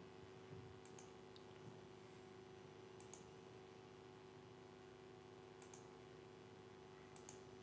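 About four faint computer-mouse clicks, each a quick pair of ticks, spaced a second or two apart over near silence with a low steady hum.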